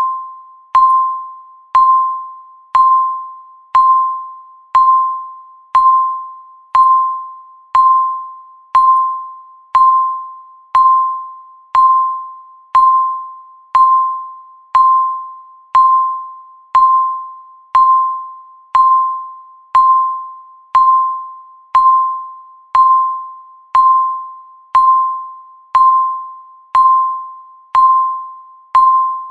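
Countdown timer ticking once a second: each tick is a short, bell-like ding on one pitch that fades quickly, in a perfectly even beat.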